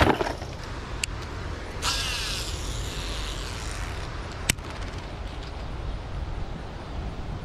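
A fishing rod being cast: a thump at the start, then a swish and line hissing off the reel for about two seconds, ending in a sharp click of the reel engaging. Low wind rumble on the microphone underneath.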